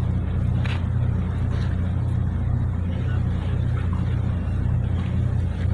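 Fishing boat's engine running with a steady low drone, with a few light clicks over it.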